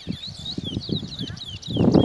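Caged Trinidad bullfinch singing: a fast run of short, high chirps that slur downward, with murmuring voices underneath. A loud, low rush of noise starts near the end.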